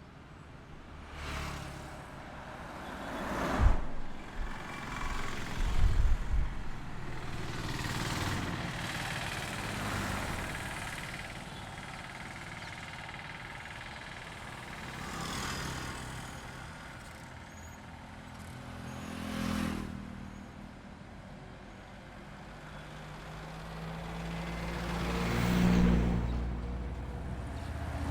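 State highway traffic: a string of cars and trucks passing one after another, each engine and tyre noise swelling and fading over a few seconds, with the loudest passes about 4, 6 and 26 seconds in.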